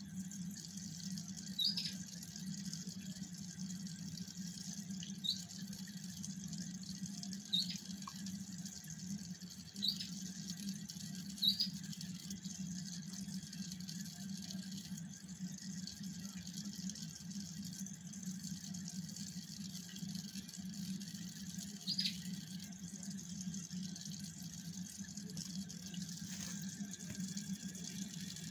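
Steady low hum with a faint hiss, as of reef-aquarium pumps running, broken by short high-pitched chirps: five in the first twelve seconds and one more past the middle.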